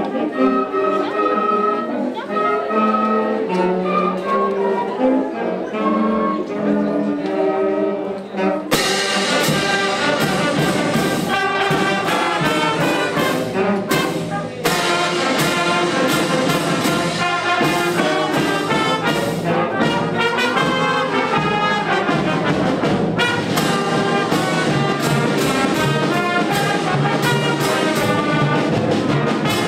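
School concert band playing: about nine seconds of softer sustained wind chords, then the full band with brass and drums comes in loud and bright, with a short break about fourteen seconds in.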